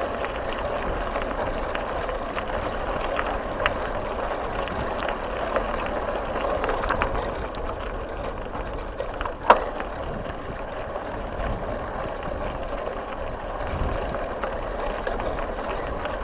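Tyres rolling over a loose gravel track, a steady rushing noise with scattered small clicks and rattles. There is one sharp knock a little past halfway.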